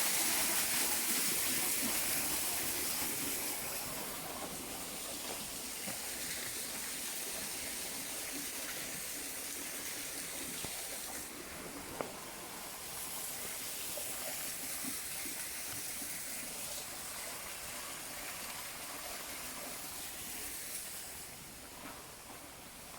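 Steady rush of falling water from a waterfall and stream, louder at first and easing after a few seconds, with a single sharp click about twelve seconds in.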